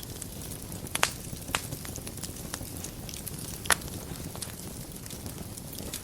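Wood fire burning in a fireplace: a steady low rumble of flames with sharp crackling pops every second or so, the loudest pop a little past the middle.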